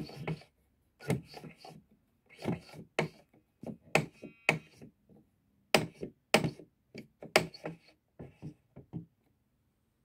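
Irregular plastic clicks and clacks from a 1980s Chicco children's toy typewriter being worked, in small clusters with short pauses, with a brief tone about four seconds in.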